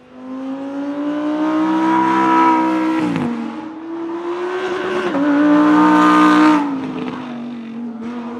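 Lamborghini Huracán EVO's naturally aspirated 5.2-litre V10 accelerating past with the revs climbing, dropping sharply about three seconds in, climbing again and falling away near seven seconds, then running on at lower revs.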